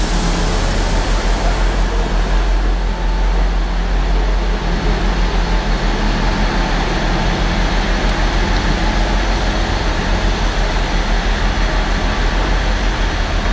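Diesel passenger train standing at the platform with its engines idling: a loud, steady low rumble under an even hiss, heard from close alongside.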